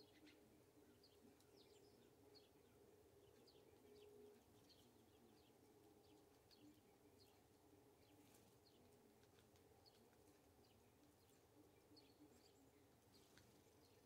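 Faint, scattered short high chip notes of small songbirds, irregular throughout, over a faint steady low hum.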